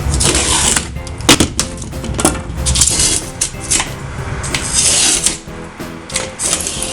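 Rigid XPS foam board being cut and trimmed, heard as rough bursts of scraping with a few sharp clicks and knocks, over background music.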